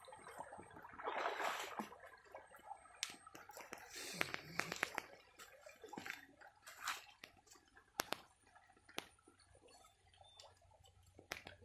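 Water sloshing and splashing as a cast net is hauled through shallow, muddy floodwater by a wading fisherman, with scattered sharp clicks throughout.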